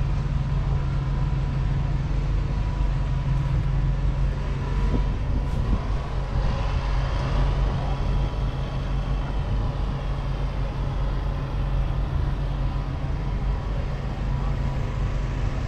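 A diesel engine idling steadily, a low even drone that does not change.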